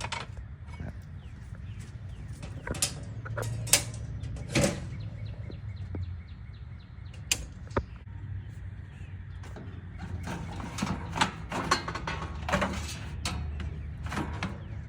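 Scattered sharp clicks and knocks, several in quick clusters, over a low steady rumble.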